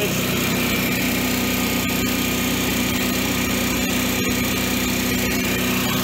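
Generac-built 7 kW air-cooled standby generator engine running steadily at constant speed with no load, just after starting.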